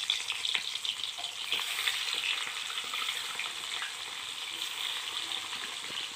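Pieces of fish sizzling in hot oil in a kadhai as they are fried, with small crackles and spatters. It is louder in the first couple of seconds, then settles to a steady sizzle.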